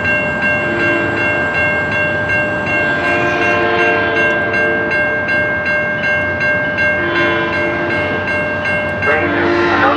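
Railroad grade-crossing bell ringing steadily as the gate arm lowers, while an approaching SunRail commuter locomotive sounds its two-note horn in separate blasts: short, long, short, and another starting near the end. This is the usual warning a train gives as it nears a road crossing.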